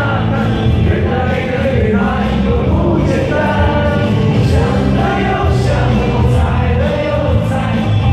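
Live pop music from a band over a stadium sound system, with a steady beat and several voices singing.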